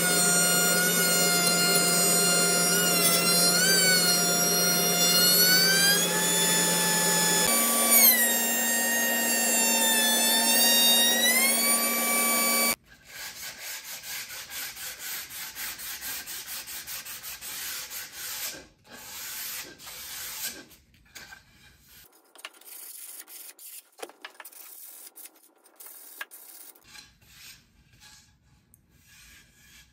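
Router table motor whining as a raised-panel bit cuts the edge of a solid cherry panel, its pitch dipping under load and rising again; it cuts off suddenly about 13 seconds in. Then hand sanding of the panel's edges: a run of rubbing strokes with sandpaper that grow sparser toward the end.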